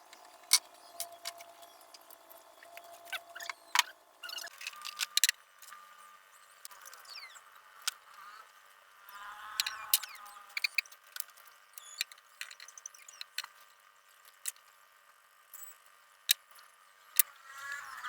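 Scattered sharp clicks and taps of airgun parts being handled while the gun is taken apart to replace an o-ring, with a faint steady hum that stops about four seconds in.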